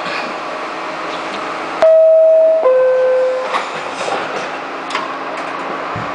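R68A subway train's horn sounding two steady notes, a higher one for under a second, then a lower one, over the steady rumble and occasional clicks of the train running on the rails.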